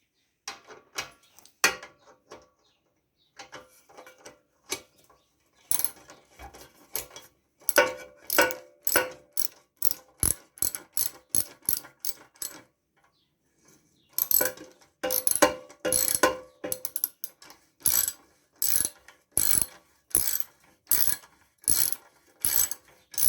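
Hand ratchet wrench clicking in repeated back-and-forth strokes, tightening fasteners on a small tiller engine. The strokes come at roughly one to two a second, in two long runs with a short break between them.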